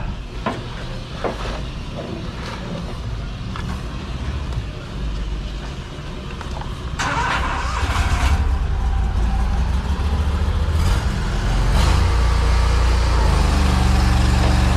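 Engine of a high-pressure drain-jetting rig running steadily, getting louder about seven seconds in and again about twelve seconds in, with a short hiss at the first rise.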